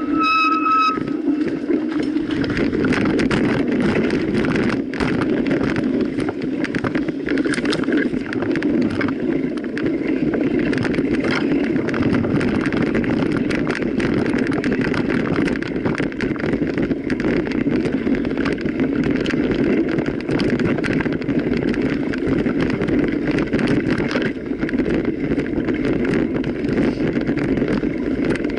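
Steady rolling noise of a mountain bike being ridden, tyres on a rough track with frequent small rattles and clicks. There is a short high tone in the first second.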